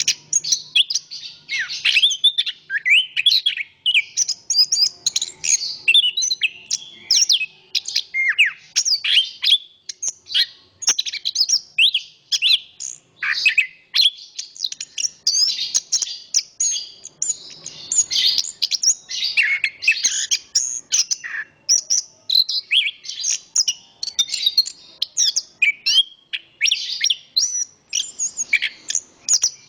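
Chestnut-capped thrush singing a long, unbroken song of rapid high whistled notes, quick up-and-down glides and trills, one phrase running into the next with only the briefest gaps.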